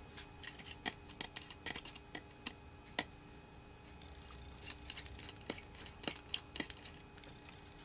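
Faint, irregular small clicks and ticks of a precision T5 Torx screwdriver working a screw out of an opened laptop hard drive, with one slightly louder click about three seconds in.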